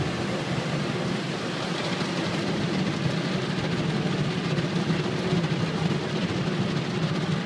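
Automatic car wash heard from inside the car's cabin: a steady, unbroken rumble and rush of water spray and wash machinery working over the car.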